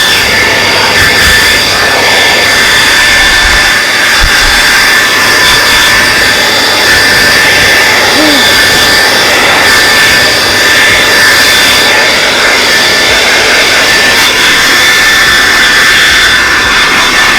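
TRESemme hair dryer running steadily on its stronger setting: a loud, even rush of air with a high motor whine held at one pitch.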